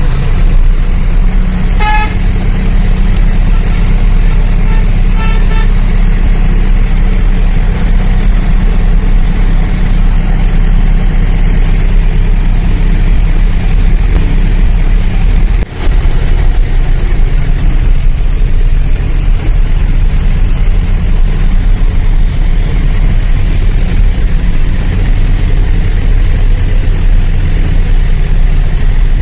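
A vehicle engine running steadily with a heavy low rumble. A horn sounds once about two seconds in, then a few short toots around five seconds in.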